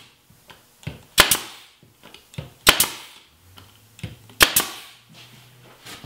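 Pneumatic brad nailer firing three nails into wood about a second and a half apart, each shot a sharp double snap with a lighter tap just before it.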